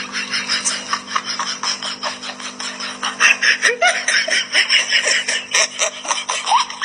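Laughter: a fast, continuous run of giggling pulses, louder from about three seconds in.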